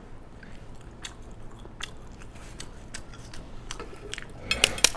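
Light clicks and small crunches from eating and from handling cooked eggs on a plate, picked up by a close microphone, with a short cluster of crackles a little over four seconds in.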